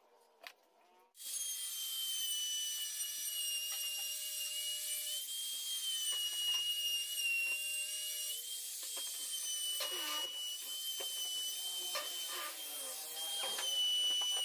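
Compact trim router running with a steady high whine, starting suddenly about a second in, as its bit cuts grooves into a pine board; the pitch wavers slightly as the cut loads the motor.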